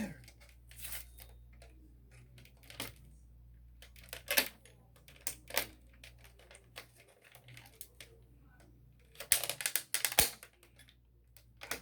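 Irregular small clicks and taps from handling an alarm clock's battery compartment and its AAA batteries, with a quick flurry of clicks about nine to ten seconds in.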